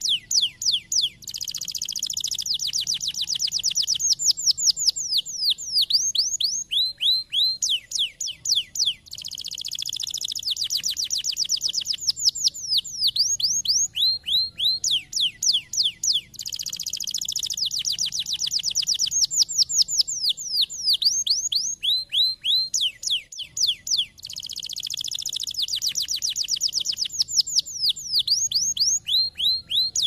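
Domestic canary singing: a rapid rolling trill followed by fast downward-sweeping whistled notes, the same song phrase coming round about every seven and a half seconds.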